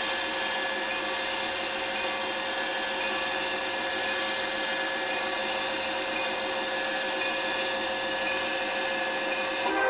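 Steady whirring of a small electric motor, with a constant whine held at several fixed pitches.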